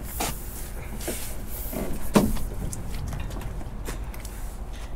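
A few scattered knocks and clunks, the loudest about two seconds in, over a low steady background.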